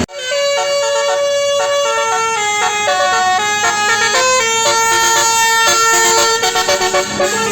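Tour bus telolet basuri musical horn playing a melody: several horn tones sounding together and stepping from note to note, cutting in suddenly.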